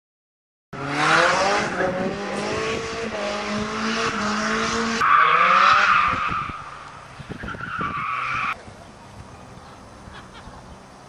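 Small car drifting: engine revving high, rising in pitch, with tyres squealing. The sound cuts abruptly about five seconds in to a louder, sharper tyre squeal, then about eight and a half seconds in drops to a faint engine.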